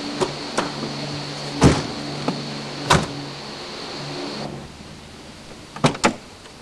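A steady motor hum with a high thin whine that cuts off about four and a half seconds in, with a series of sharp knocks and clicks, two of them close together near the end.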